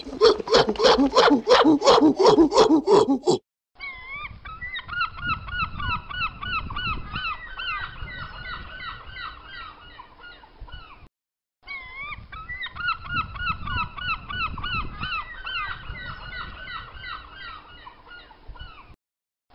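A flock of flamingos honking, many goose-like calls overlapping. The honking cuts out briefly about eleven seconds in and again near the end. Before the flamingos, the loudest sound is a rhythmic run of short pitched calls, several a second, which stops abruptly about three and a half seconds in.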